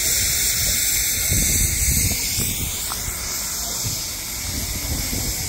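Steady hissing of steam from a narrow-gauge forestry steam locomotive, over a low uneven rumble.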